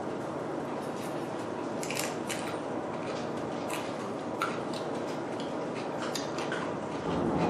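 Eating utensils clinking lightly against a dish, a handful of short scattered clicks, over a steady background hiss.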